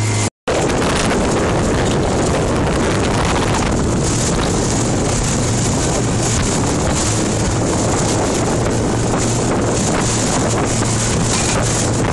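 Rigid inflatable motorboat running across choppy sea: a steady engine drone under heavy wind noise on the microphone, which cuts in after a brief gap at the start.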